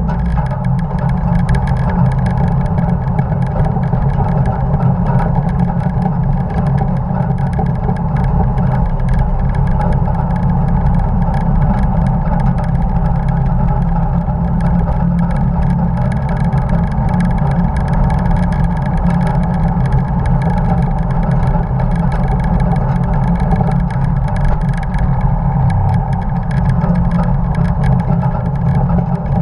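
Engine of a 1950 Dodge truck running steadily at speed, a loud constant drone with no big changes in revs.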